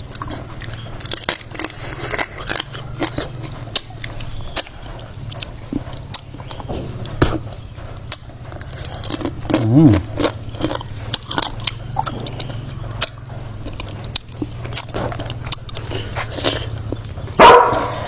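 Close-up eating: chewing, biting and crunching with many sharp clicks and crackles, over a low steady hum. A short pitched vocal sound comes about ten seconds in, and a brief loud one near the end.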